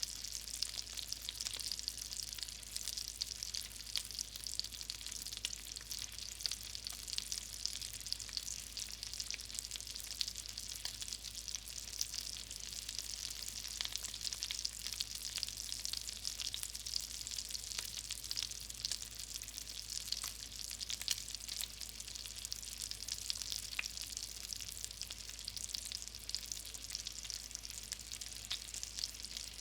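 Hot grease frying in a pan: a steady sizzle thick with small pops and crackles.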